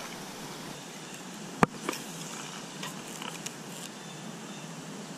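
Handling of a spinning rod and reel: one sharp click about a second and a half in, a softer one just after, and a few faint ticks, over a quiet steady background hiss.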